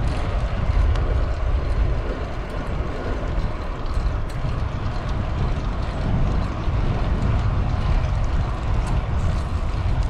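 Steady wind rumble on a bike-mounted microphone and tyre noise from a single-speed bicycle being pedalled on asphalt. No regular clicking or clunking stands out from the freshly tightened bottom bracket.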